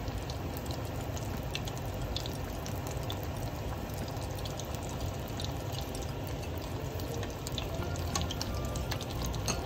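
Potato-starch-coated chicken pieces deep-frying in a pot of oil: a steady sizzle with scattered small pops and crackles.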